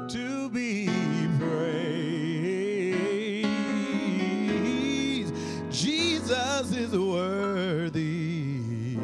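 A man singing gospel solo into a microphone, holding long notes that bend and waver, over sustained instrumental chords.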